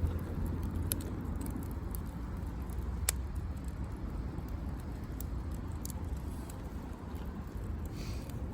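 Wood campfire crackling, with scattered sharp pops, the sharpest about three seconds in, over a steady low rumble.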